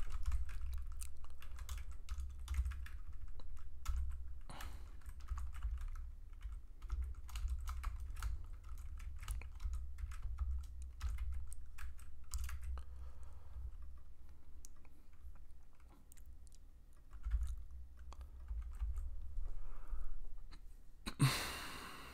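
Typing on a computer keyboard: irregular runs of clicking keystrokes. A short, loud rush of noise comes near the end.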